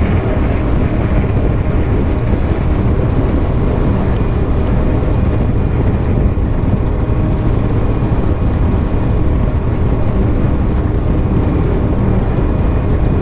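Fountain 42 Lightning offshore powerboat running at high speed across choppy water, heard from on board: a steady, loud engine drone mixed with wind buffeting the microphone and water rushing past the hull.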